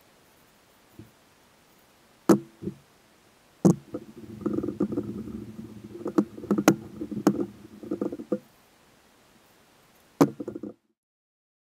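A hardwood cheese board knocking down onto plastic painter's pyramids and rocking on them as it is rubbed with an oiled rag: a few sharp knocks, then several seconds of rubbing with scattered clicks, and a last knock with brief rubbing before the sound cuts off.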